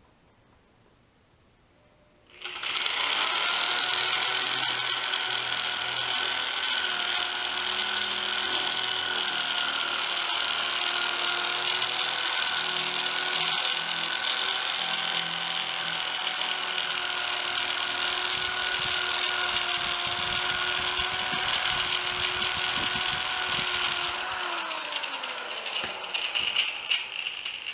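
Harbor Freight 14-gauge swivel-head electric metal shear running steadily as it cuts a strip of 14-gauge stainless steel sheet, starting about two seconds in. Near the end the motor is switched off and its pitch falls as it winds down, followed by a few light metal clatters.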